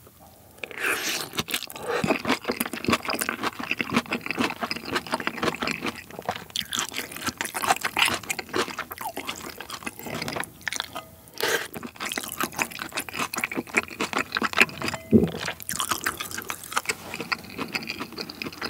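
Close-miked wet chewing and lip smacking of a mouthful of saucy stir-fried pepper strips (gochu japchae), a dense run of irregular sticky clicks, with a short lull partway through.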